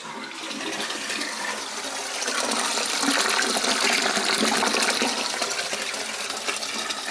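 Sink water rushing down the drain through a freshly plumbed waste pipe and trap, the plug pulled to test the new seal. The rush builds over the first few seconds, then eases slightly.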